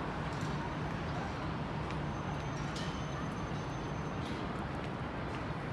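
Outdoor city street ambience: a steady hum of traffic with some voices of passers-by. A faint high, whistle-like tone sounds for about two seconds in the middle.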